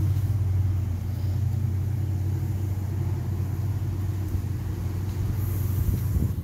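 Steady low rumble, with a few brief low knocks near the end.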